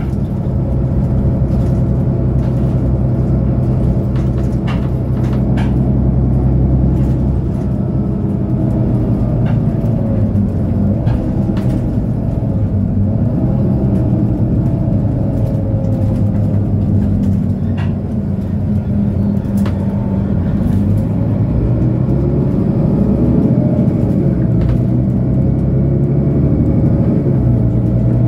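Diesel engine of a 2008 Mercedes-Benz O530 Citaro bus idling steadily at a stop, with a few faint clicks over it.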